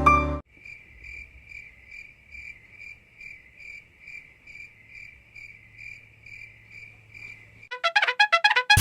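Cricket chirping steadily, an even pulse of about two to three chirps a second. Near the end a quick run of short notes climbs in pitch.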